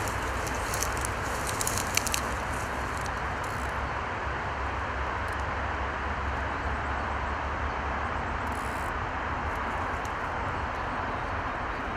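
A hooked pike splashes a few times at the water's surface in the first two seconds, over a steady background rush.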